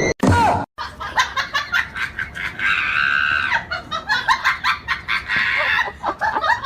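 A person laughing hard in short, high-pitched bursts, with a longer shriek of laughter about halfway through.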